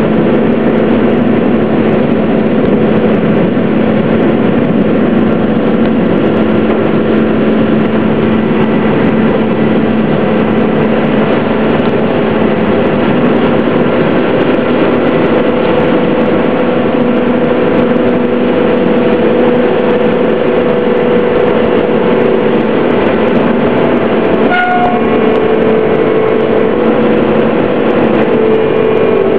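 Ferry engine running with a steady drone, heard aboard while the boat crosses the water. There is a short click about 25 s in, after which the engine note settles slightly lower.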